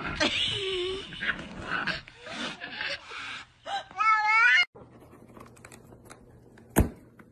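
Pet animal vocalising: scattered whines and noises, then a loud, wavering high cry lasting about half a second that cuts off abruptly. After a much quieter stretch there is a single sharp click near the end.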